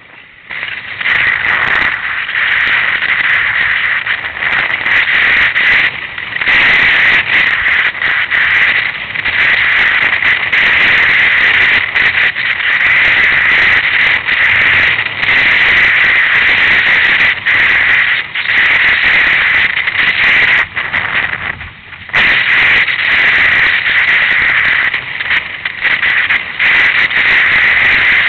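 Loud rushing wind and water noise on the microphone of a camera riding along on a windsurfer at speed, harsh and crackling, dropping away for a moment a few times.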